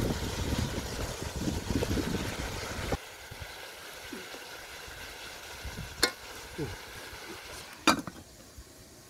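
Wooden spatula scraping and turning fish frying in a metal pot over a wood fire, with the oil sizzling; the sound stops abruptly about three seconds in. Near the end a metal pot lid clanks down onto the pot, after a lighter click a couple of seconds before.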